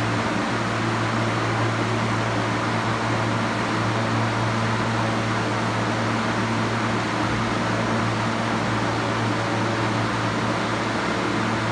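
R160 subway train standing at the platform with its doors open, its air conditioning and onboard equipment giving a steady, unchanging hum.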